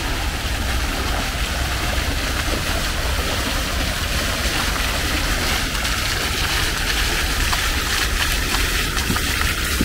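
Small water fountains splashing: a steady, even hiss of falling water with a low rumble underneath.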